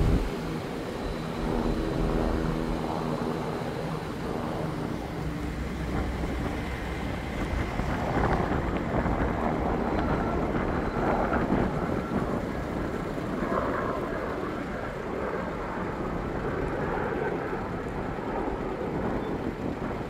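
A vehicle engine running with a steady low hum for the first six or seven seconds, then a steady low rumbling noise.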